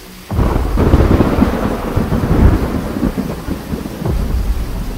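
A thunderclap breaks in suddenly about a third of a second in and rumbles on for about four seconds, fading near the end. Beneath it is the steady noise of heavy rain and running floodwater.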